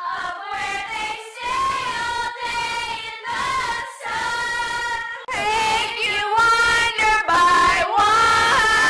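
Girls singing loudly, holding long notes between short breaks, louder from about halfway through.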